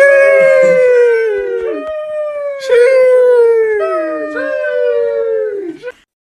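Animal howling: four or five long, drawn-out calls, each sliding slowly down in pitch, some overlapping one another, stopping about six seconds in.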